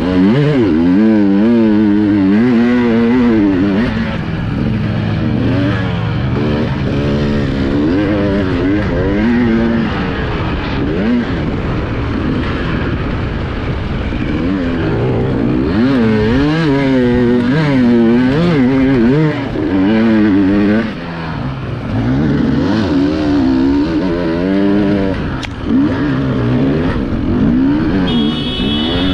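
Off-road enduro motorcycle engine revving up and down again and again as the throttle is worked over rough terrain, with short pauses and a few longer pulls.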